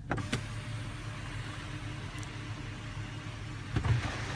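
Steady low hum inside a Range Rover's cabin, with a few light clicks in the first half second and a louder knock about four seconds in.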